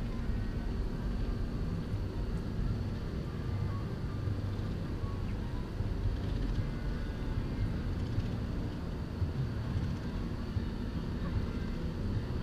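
Chairlift running uphill, heard from a chair: a steady low rumble with a faint hum throughout.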